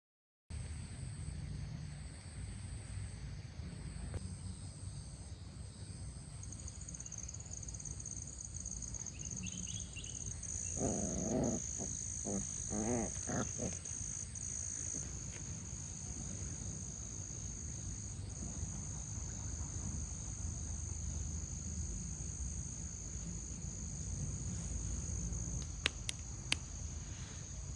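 Insects chirring steadily in a continuous high-pitched trill, typical of crickets. About halfway through a short wavering call is heard, and two sharp clicks come near the end.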